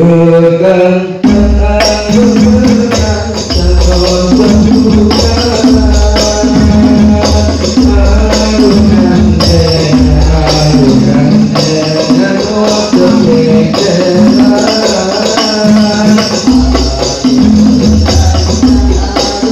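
Male group singing sholawat, Islamic devotional song, to rebana frame drums. A held sung note opens it, and about a second in the drums come in with a steady rhythm of deep strokes and bright slaps under the melody.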